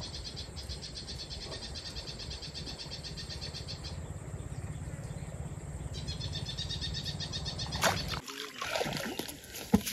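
Insects chirring in a fast pulsing trill that pauses for about two seconds midway, over a steady low rumble. About eight seconds in the rumble cuts off and a few sharp clicks and knocks follow.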